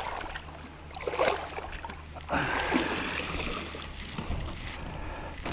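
Pond water splashing and sloshing as a mesh fish landing net is dunked and swished in it to rinse it, in irregular bursts with a longer stretch of running, dripping water after about two seconds.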